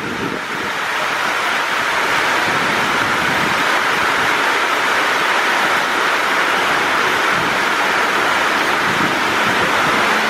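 Heavy rain pouring down in a loud, steady hiss, swelling over the first second, as a Bombardier/Siemens electric local train runs in at speed through the downpour, its rumble under the rain.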